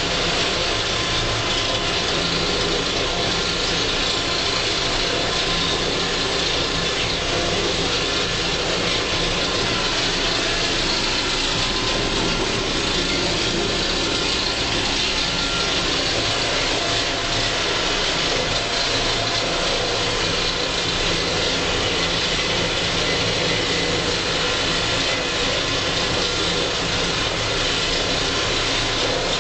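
Valtra 6800 TwinTrac tractor's engine running steadily under load while powering a 3-metre pasture topper through tall grass, heard from inside the cab as a constant drone with no change in pitch.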